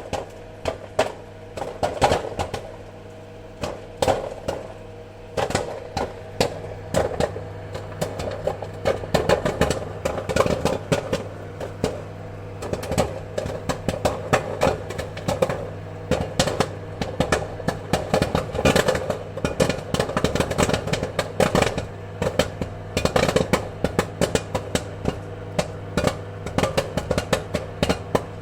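Popcorn kernels popping: a dense, irregular run of sharp pops, many overlapping, over a steady low hum.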